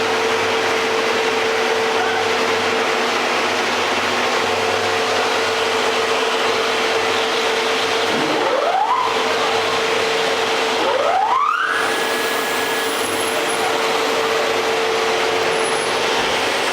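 Steady running noise of workshop machinery with a constant hum. Two rising whines come about 8 and 10.5 seconds in, the second climbing higher and then holding its pitch, like a motor spinning up to speed.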